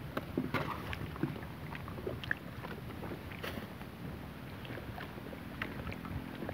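Small choppy waves lapping and slapping at the water's edge, with many short scattered splashes over a steady wash of water and wind.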